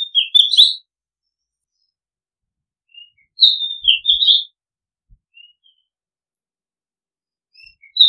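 Oriental magpie-robin singing: short, loud whistled phrases, each a high note that dips and warbles back up. One phrase comes at the start, another about three and a half seconds in, and a third begins just at the end.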